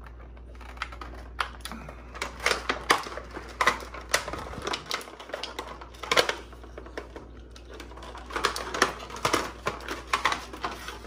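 Clear plastic blister packaging crackling and clicking as an action figure is worked out of it by hand: many irregular sharp clicks and crinkles.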